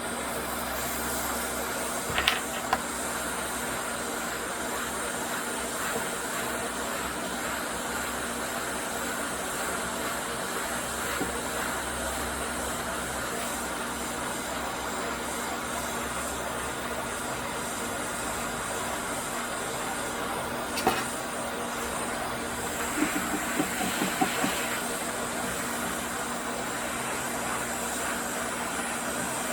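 ATTEN ST-862D hot air rework gun blowing a steady hiss of hot air while it heats the solder joints of a USB socket to free it. A few light clicks are heard now and then, most of them in a cluster in the last third.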